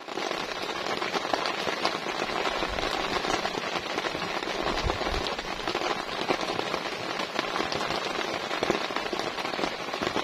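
Heavy rain drumming on a tent's fabric, a dense steady patter of countless drops, with a brief low rumble about five seconds in.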